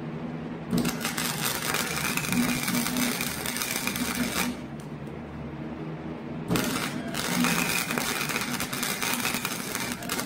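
Wire-feed (MIG) welder arc crackling and sputtering through two weld runs on steel, the first starting under a second in and stopping at about four and a half seconds, the second starting at about six and a half seconds and running nearly to the end. A steady low hum sits underneath.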